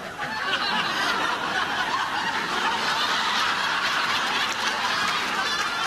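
Audience laughing and applauding steadily, like a sitcom laugh track.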